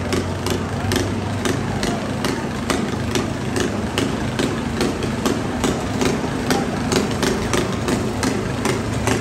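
Several riding lawn mower engines running together as the machines ram and shove each other in a demolition derby, with frequent sharp knocks throughout.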